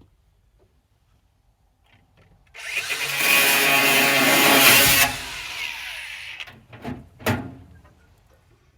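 A handheld power tool runs loudly for about two and a half seconds, then cuts off and winds down. Two sharp knocks follow.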